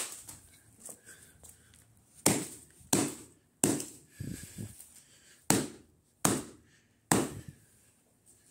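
A Samsung Admire phone in a plastic bag being smashed against a concrete floor: about seven loud, sharp blows, several coming in quick succession, with a few lighter knocks between.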